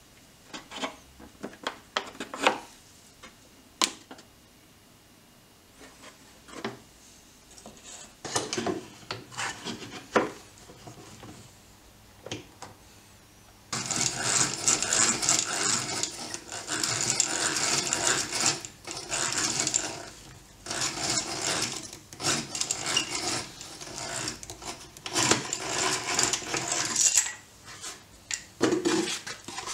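Light clicks and knocks of wooden pieces being handled, then, about halfway through, a hand-cranked drill boring into pallet wood: a continuous grinding rasp that falters briefly a couple of times and stops shortly before the end.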